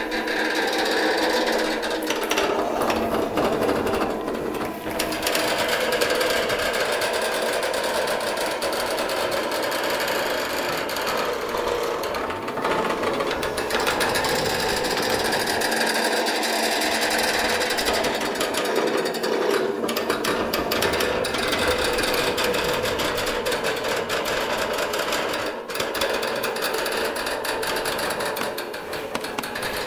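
Experimental live sound performance: a fast, continuous clattering rattle layered over several held drone tones, dense and unbroken.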